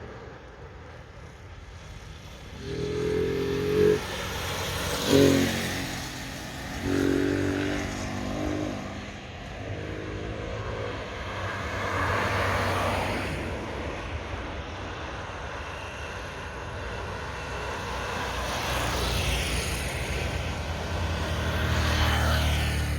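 Road traffic: several motor vehicles pass one after another, engine notes rising and fading, then the swelling and fading rush of further vehicles going by.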